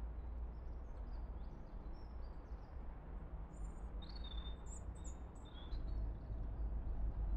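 Small songbirds chirping and twittering on and off in short, high calls, over a steady low rumble that grows louder near the end.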